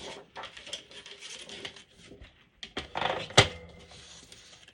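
Cardstock being positioned and cut on a paper trimmer: light rustles and small clicks, with a brief scraping rush about three seconds in that ends in a sharp click.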